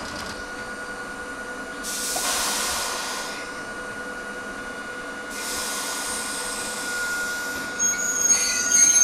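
Hakone Tozan Railway electric train with a steady hum, broken by two long hisses about two and five seconds in. Near the end, high-pitched wheel squeal sets in and is the loudest sound.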